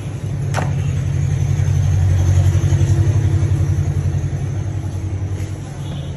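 A motor vehicle's engine running with a fast low pulse, growing louder to a peak about two to three seconds in and then fading, as of a vehicle passing. Just after the start, one sharp chop of a cleaver striking the wooden chopping block.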